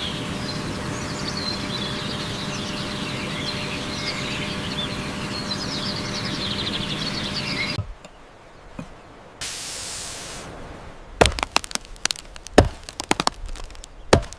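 A steady rushing noise with high, flickering chirps over it cuts off abruptly about eight seconds in. After a brief hiss, a quick run of sharp knocks and cracks follows.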